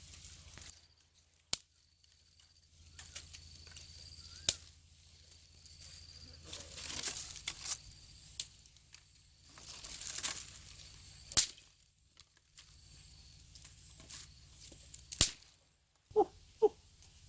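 Rustling and crackling broken by several sharp snaps, then short clucking calls from a chicken starting near the end.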